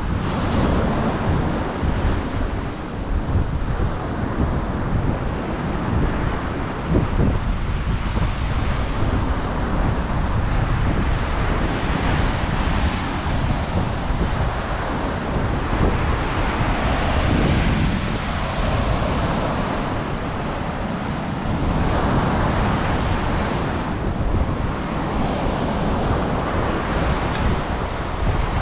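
Ocean surf washing onto the beach, the rush of breaking waves swelling and fading every few seconds, with wind buffeting the microphone.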